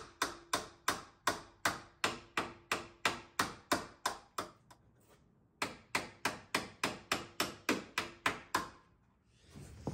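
Hammer blows on a metal bracket, bashing it in to make clearance, about three strikes a second with a faint metallic ring. The strikes come in two runs, with a short pause about halfway through.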